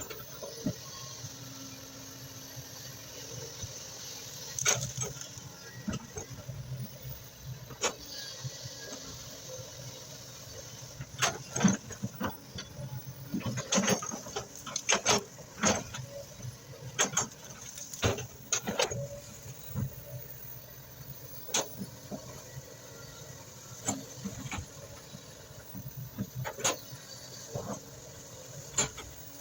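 Excavator engine running steadily, with many irregular sharp knocks and clanks on top, thickest in the middle stretch.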